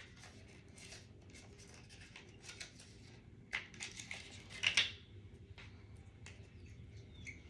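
A cheek and lip oil's packaging being opened by hand: scattered scratching and rustling, with two louder strokes near the middle.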